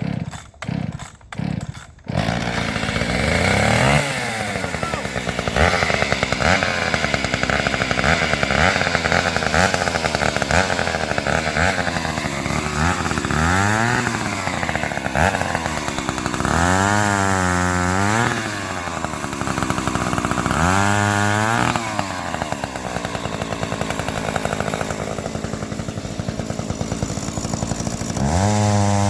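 Stihl 031AV two-stroke chainsaw cold-started on the choke: a few quick pulls on the starter cord, then the engine catches about two seconds in and runs. It is revved up and back down several times, about four throttle blips in the second half.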